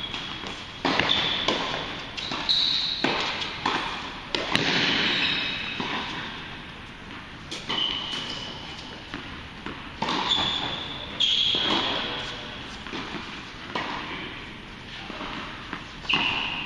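Tennis balls struck by rackets and bouncing on an indoor hard court: a string of sharp pops that echo in the large hall, thickest in the first few seconds, with a few short high squeaks between them.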